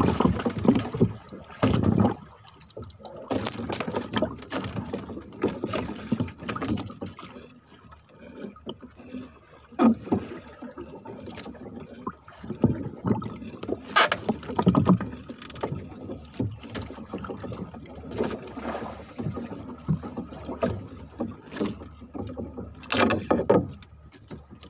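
Irregular knocks, clicks and rustling of fishing gear being handled aboard a small boat, with a few sharper knocks against the hull.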